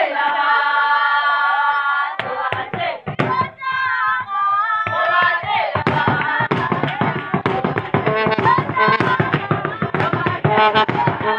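A group of Zulu women singing a traditional song in chorus with hand clapping. It opens with a long, high held cry. Clapping comes in about two seconds in and settles into a steady beat under the singing from about halfway through.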